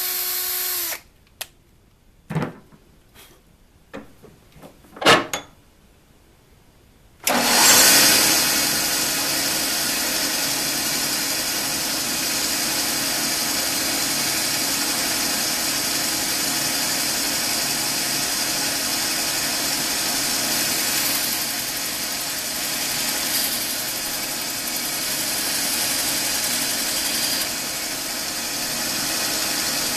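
A cordless drill spins and winds down, followed by a few sharp knocks. About seven seconds in, a band saw and its attached shop vacuum start and run steadily while a small aluminum key is fed into the blade.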